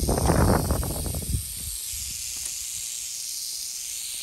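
Western diamondback rattlesnake rattling its tail in a steady high buzz, the warning of an agitated snake. A low rumble sits under the buzz for about the first second and a half.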